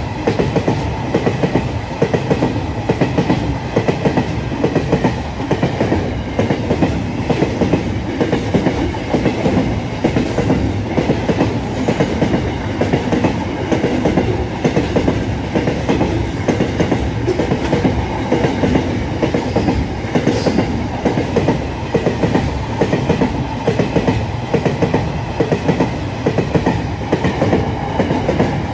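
Long freight train of open wagons passing close by at speed: a steady rumble with the wheels clattering in repeated clusters of clicks over the rail joints.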